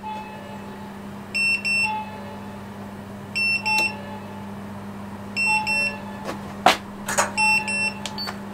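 Inkbird IBT-26S wireless meat thermometer sounding its target-temperature alarm: a short double beep about every two seconds, four times, the sign that the probed chicken has reached temperature. A steady low hum runs underneath, and two sharp clicks come near the end.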